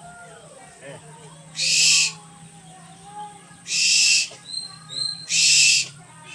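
Owl giving three harsh, hissing screeches, each about half a second long, roughly two seconds apart.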